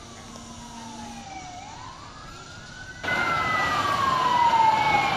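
Emergency vehicle siren wailing in slow sweeps, falling, rising and falling again, with a fainter second siren above it. The street noise under it jumps much louder about three seconds in.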